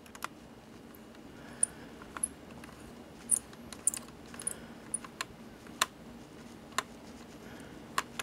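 Small Phillips screwdriver driving a tiny coupler screw into an HO model locomotive, giving light, irregular clicks and ticks as the tip turns and catches in the screw head.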